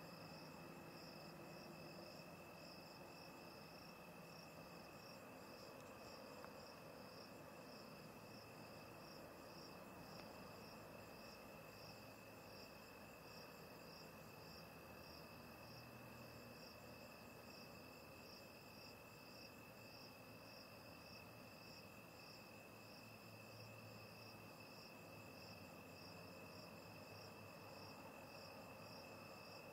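Faint chorus of night insects: one holds a steady, unbroken high trill while another chirps in an even pulse about one and a half times a second.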